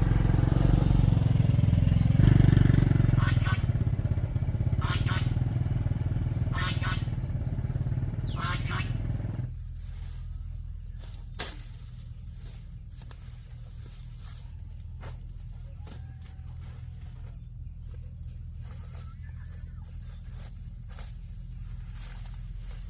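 An engine running with a low rumble, which cuts off abruptly about a third of the way in and leaves quieter outdoor ambience. A steady high-pitched insect-like buzz carries through, with scattered clicks.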